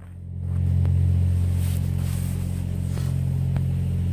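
A steady low engine hum that swells about half a second in and then holds, with a couple of faint clicks.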